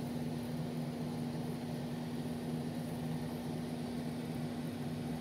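Steady low mechanical hum with a constant pitch and nothing else happening.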